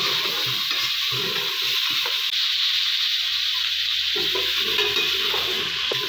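Mutton pieces sizzling in hot oil with fried onions in an aluminium pot, while a perforated metal spatula stirs them and scrapes against the pot. The sizzle is steady; the stirring scrapes drop out for about two seconds midway.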